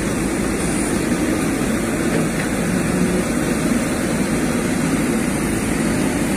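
Heavy diesel engines of a Tata tipper truck and a backhoe loader running together at a steady, even pitch, under load while the backhoe pulls the truck, which is stuck in mud, on a rope.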